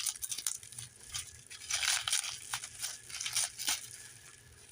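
Duct-taped packaging being pulled open by hand: scattered ripping of tape and crinkling of wrapping, with small clicks.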